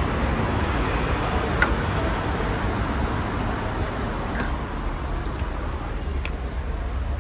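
Steady low rumble of a covered car park, with a few light clicks and rustles as people climb into the back seat of a car.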